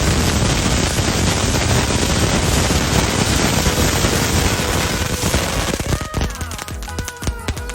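Loud, dense, rapid crackling and popping, then music comes in about six seconds in.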